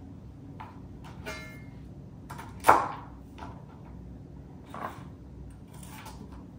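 Kitchen knife cutting flat beans on a plastic cutting board: a few separate knocks of the blade on the board, the loudest nearly three seconds in.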